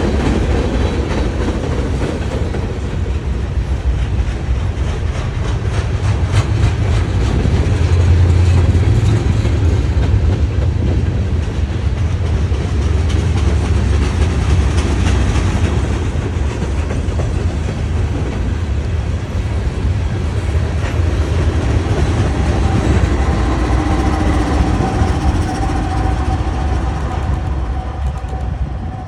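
Norfolk Southern freight train rolling past close by: a loud, steady low rumble with the wheels clicking over rail joints. A thin whine joins in during the last few seconds, and the sound starts to fall away at the very end.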